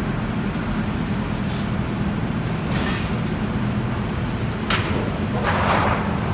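Drum wood chipper and the wheel loader feeding it, running with a steady low drone of heavy machinery. Short bursts of noise as logs are dropped into the infeed and broken up: about three seconds in, near five seconds, and a longer, louder one near the end.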